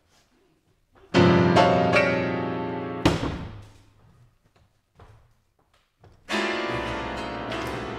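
Solo piano playing loud, dense clusters of many notes at once in a modernist piece: a sudden mass of sound about a second in, restruck twice and left to ring and fade. A heavy low strike follows, then after a short pause another loud cluster near the end that keeps ringing.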